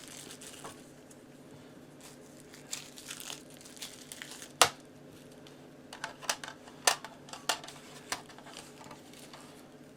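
Handling noise from a smoke/CO alarm being set up: plastic crinkling and scattered sharp plastic clicks, the loudest about four and a half seconds in and a quick run of clicks a couple of seconds later.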